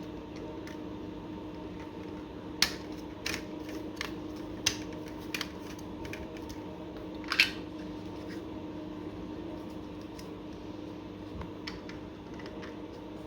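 Scattered sharp clicks and taps as the pieces of a modular wine rack are handled and a connector is slid into place between two bottle holders. The loudest clicks come about two and a half seconds in and about seven seconds in.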